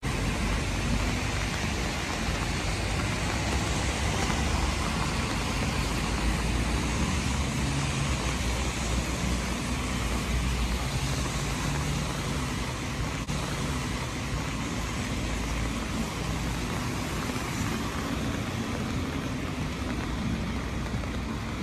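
Steady city traffic noise from wet roads: a continuous hiss with a low rumble beneath it.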